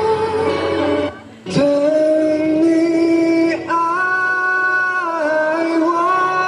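A song with long held sung notes over backing music, breaking off briefly about a second in.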